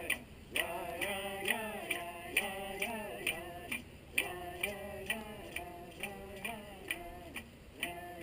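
A man chanting in vocables, his voice holding and sliding between notes, over a steady ticking beat of about two strokes a second.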